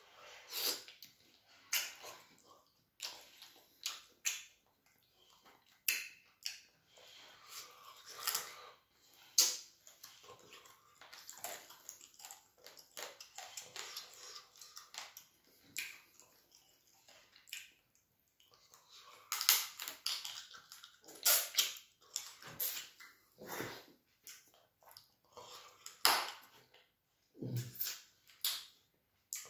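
A person eating fufu and chicken in light soup by hand, close to the microphone: irregular wet smacking and chewing sounds, with a brief pause a little past the middle.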